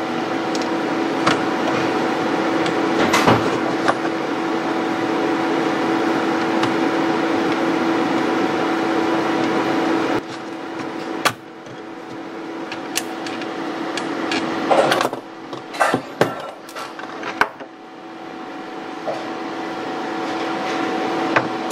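Hand screwdriver turning a longer screw through a laptop's plastic base into the hinge, with sharp clicks, over a steady fan hum. Around two-thirds of the way through there is a cluster of knocks and rattles as the laptop is lifted and turned over.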